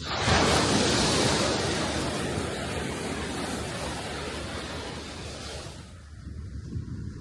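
A sea wave breaking on the shore: a sudden crash that fades slowly over about six seconds as the water washes back.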